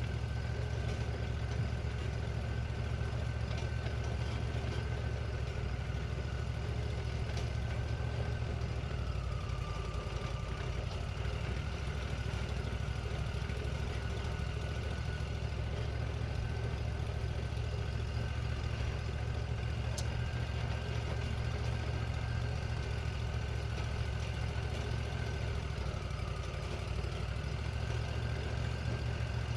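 Wood-Mizer LT40 portable band sawmill running steadily, its engine humming under a thin high whine that drops in pitch briefly twice, about a third of the way in and again near the end.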